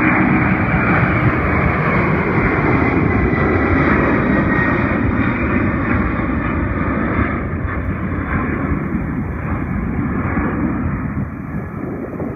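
Boeing 767 jet freighter's two engines at climb-out power right after takeoff: a loud, steady jet roar that slowly fades from about seven seconds in as the aircraft draws away.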